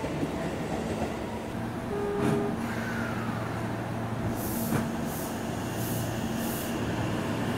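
Electric commuter train running on the line: a steady rumble with two sharp clicks, about two and five seconds in, and four short high hisses in quick succession in the second half.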